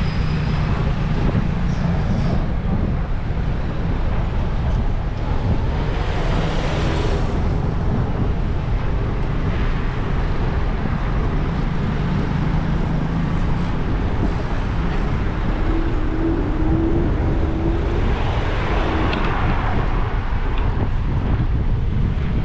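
Steady road-traffic and vehicle engine noise, with wind buffeting the microphone.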